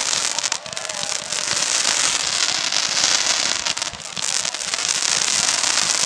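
Ground firework fountains spraying sparks: a continuous hiss thick with rapid crackling pops, dipping briefly twice.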